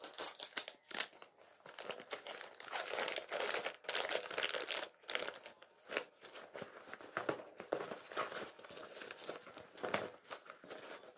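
Rustling and crinkling of a handbag and its fabric lining being opened and rummaged through by hand, with many small irregular clicks and knocks.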